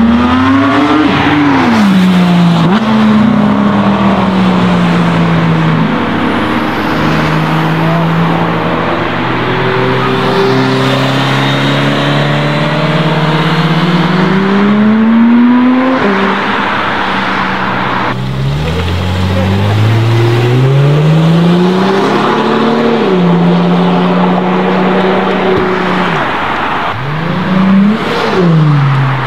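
Sports car engines, including a Porsche 911 GT3 and classic Ferraris, accelerating hard past one after another. Each engine revs up through the gears, with the pitch dropping at every upshift and climbing again.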